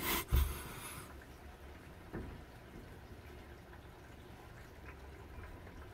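Steady rain heard faintly from indoors through a window, with a few small drip-like ticks. In the first second a brief loud rustle with a thump stands out over it.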